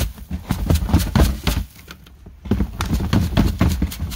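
Wooden-framed wire-mesh seed screen holding threshed coriander seed and stems, shaken back and forth by hand: a quick rhythmic rattle and scrape, about five strokes a second, with a brief pause near the middle.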